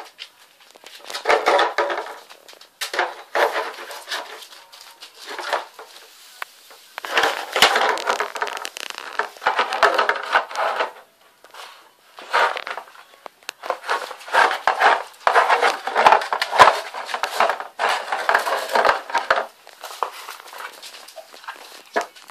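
Springer spaniel puppies playing on a tiled floor with rope and rubber toys: irregular bursts of scuffling and clattering, each a second or two long, with scattered sharp knocks.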